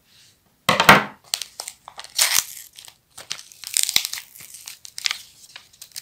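A paper blind-bag packet being cut with scissors and then crinkled and torn open by hand: irregular paper rustles and crackles, the loudest about a second in.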